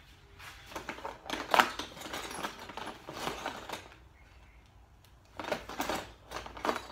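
Small clicks and scrapes of a potter's hand tools working the clay wall of a teapot and knocking on the work surface, in two busy spells with a short lull between.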